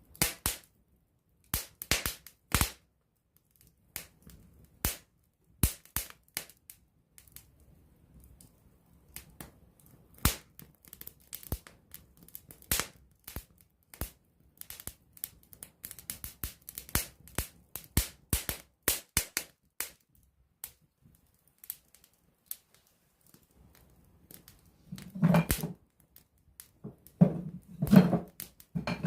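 Wood campfire crackling up close: sharp pops and snaps at uneven intervals, with quiet stretches between. Near the end, a few short, low pitched sounds join in, louder than the crackle.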